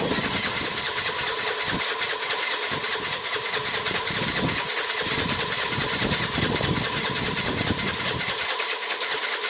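Piaggio MP3 scooter's electric starter cranking the engine over steadily without it firing, the sign of its no-start fault. The cranking stops near the end.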